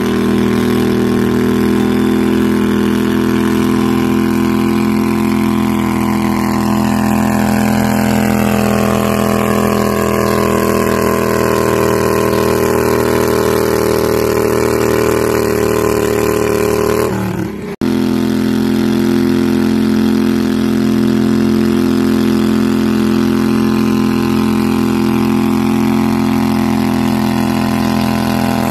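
Garden tractor engine running hard and steady while pulling a weight-transfer sled down a dirt track. Shortly after 17 s the sound drops away abruptly for a moment, then the engine is heard running again.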